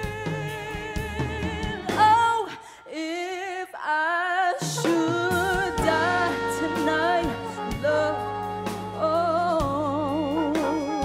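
Live band playing a soul ballad while a woman sings with vibrato. A few seconds in, the band drops out for about two seconds and her voice carries on almost alone before the band comes back in.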